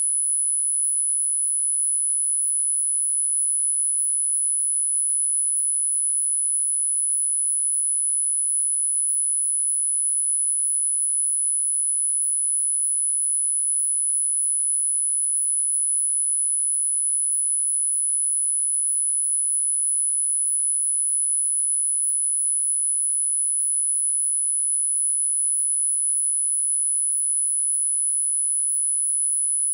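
A single electronically generated sine tone, very high-pitched and held perfectly steady at an even level, used as a 'frequency' in a subliminal track.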